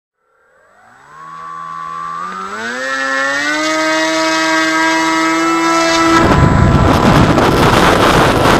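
Brushless outrunner motor (Turnigy D3536/5 1450KV) driving an 8-inch prop, heard from the plane's onboard camera. Its whine starts about half a second in and climbs in pitch in steps as the throttle is advanced, then holds steady. About six seconds in, the whine is swamped by a much louder rushing noise as the plane goes to full power for takeoff.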